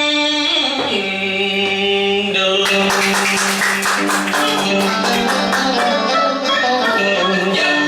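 Song with band accompaniment: a long held note ends about half a second in, then an instrumental passage with a Latin feel plays on, a steady beat joining about three seconds in.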